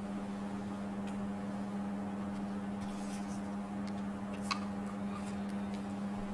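Steady low hum in the room, with a few faint scattered clicks; the sharpest click comes about four and a half seconds in.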